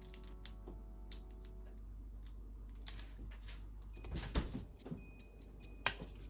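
Kitchen handling sounds: scattered sharp clicks and knocks of utensils and containers, with a busier clatter about four seconds in.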